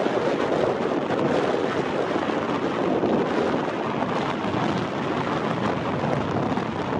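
Steady wind rushing over the microphone, mixed with small waves washing onto the beach.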